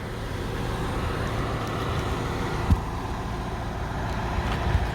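A train running past, a steady rumble with a single low knock partway through and a few lighter knocks near the end.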